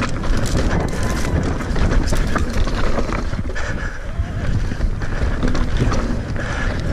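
Wind buffeting the microphone while riding a mountain bike downhill, with the rumble of tyres on a rough dirt trail and frequent rattles and knocks from the bike.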